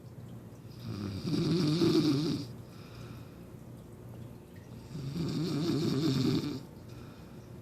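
A woman snoring heavily in her sleep: two loud, rough, rattling snores, the first starting about a second in and the second about five seconds in, each lasting about a second and a half.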